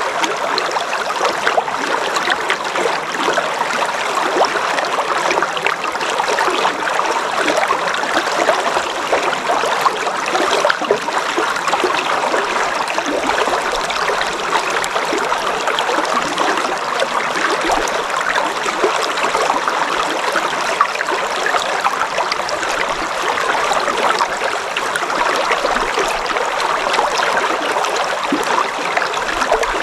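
River water flowing steadily, a dense, even trickling and splashing.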